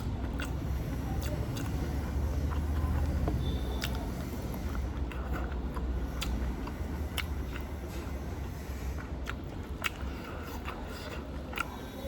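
A person chewing and biting a mouthful of chicken biryani, with scattered sharp wet mouth clicks over a steady low hum.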